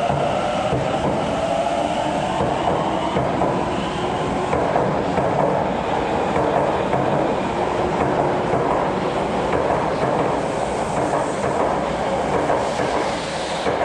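Osaka Metro 10 series subway train pulling out of the station past the platform. Its motor whine rises in pitch over the first couple of seconds, over steady loud wheel-on-rail running noise.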